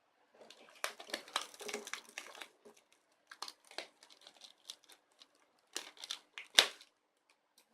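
Packaging being opened by hand: irregular crinkling and rustling with small tearing crackles, busy for the first couple of seconds, then in scattered handlings, with one louder crackle near the end.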